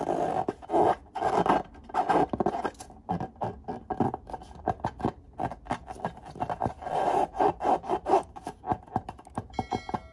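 Hands squeezing and rubbing a filled latex balloon: irregular squeaks, rubs and squishy clicks from the rubber under the fingers. A short electronic chime sounds near the end.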